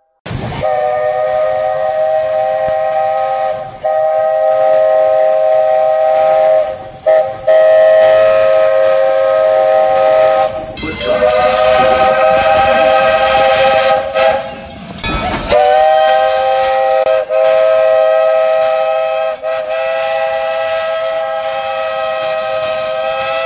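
Four-inch three-chime Lonergan steam whistle on a Disney steam locomotive blowing several long blasts: a chord of three steady tones over a hiss of steam. The whistle cuts off briefly between blasts and slides up into pitch as each new blast opens.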